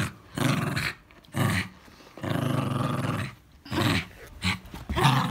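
Small terrier growling in repeated short bouts, about six, one running about a second in the middle, while tugging a rubber pig toy in play.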